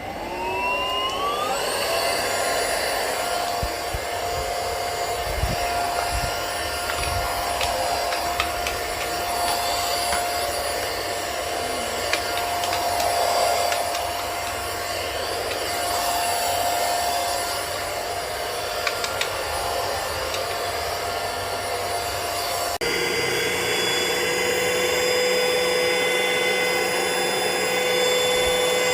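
Airbot Supersonics Aura cordless stick vacuum cleaner's motor spinning up with a rising whine, then running with a steady high whine. About three-quarters of the way through, its tone shifts suddenly to a different steady pitch.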